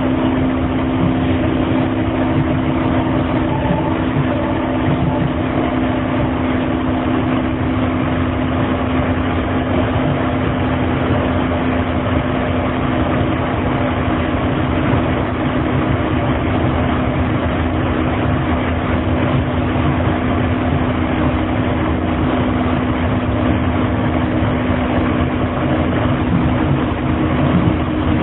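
Hiroshima Astram Line 6000-series rubber-tyred train running at steady speed: a steady low motor hum in two close tones over road noise. The uploader finds this car's motor sound abnormal.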